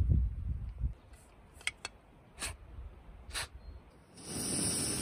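A few light clicks and taps as a backpacking canister stove is handled, then about four seconds in a steady gas hiss from the stove starts up.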